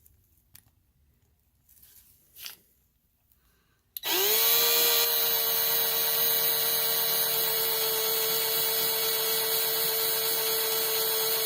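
Small electric drill drilling out a rivet on a diecast toy car's base. It starts about four seconds in, spins up quickly and then runs at a steady high whine. Before it, a few faint clicks of handling.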